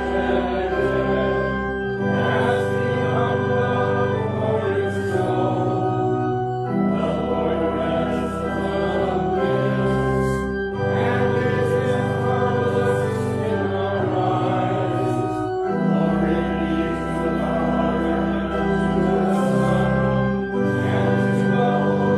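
Organ playing a hymn in slow, sustained chords over a held bass line, the chords changing every couple of seconds, with voices singing along.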